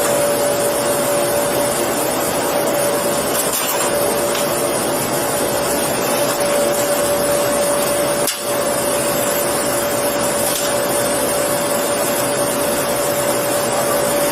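Steady loud whooshing machine noise with a constant mid-pitched hum, like a blower or ventilation unit running. It dips briefly about eight seconds in.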